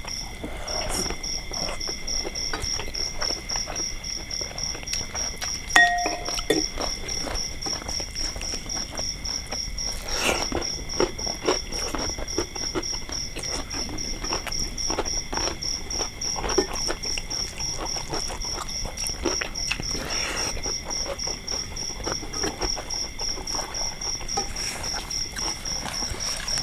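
Night insects chirping in a steady, rapid pulsing trill, under close eating sounds: chewing, and fingers working rice and fish on plates. A single ringing clink of dishware about six seconds in.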